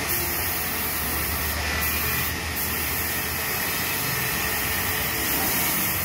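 Steady hissing workshop noise with a low hum underneath.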